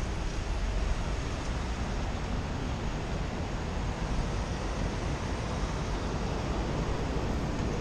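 Steady city road traffic noise, with wind rumbling on the microphone.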